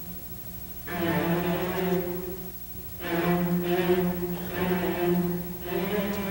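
Live orchestra playing sustained chords in separate phrases: one enters about a second in, another at about three seconds, and a third near the end, each after a short pause.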